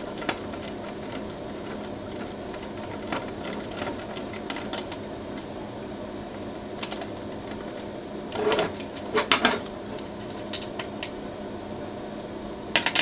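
Small metallic clicks and taps as M3 nylock nuts are worked onto the screws of a Prusa i3 MK3 heatbed, with a louder run of clicks a little past the middle and a short burst near the end. A steady low hum runs underneath.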